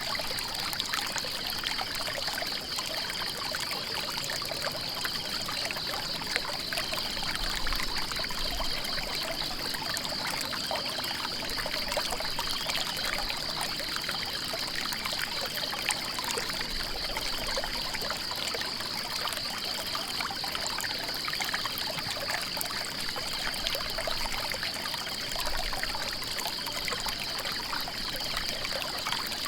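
Stream water trickling and splashing steadily. Over it runs a continuous high, rapidly pulsing trill, and faint short high notes repeat about every second and a half.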